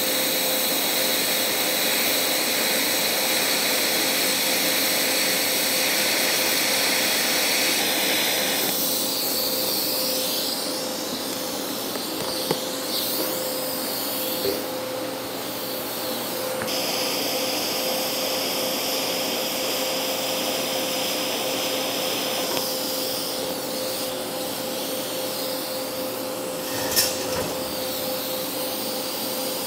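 TIG welding arc on a steel sprocket hub: a steady hiss with a high whine over it that stops about nine seconds in. A second, shorter weld runs from about seventeen to twenty-three seconds, over a steady background hiss, with a short click near the end.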